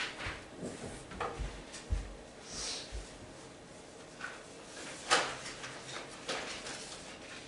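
Scattered clicks and knocks with a brief rustle, from HO scale model train cars and their packing being handled while another car is fetched; the sharpest click comes about five seconds in.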